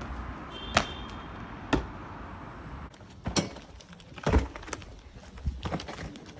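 Feet and hands striking stone, concrete and brick as parkour jumps, flips and vaults are landed: a string of separate sharp thuds and slaps, roughly one a second.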